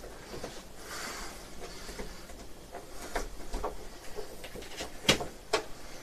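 Hands pressing a new rubber refrigerator door gasket's tongue into the door's groove: faint rubbing and scattered small clicks, with two sharp clicks about five seconds in.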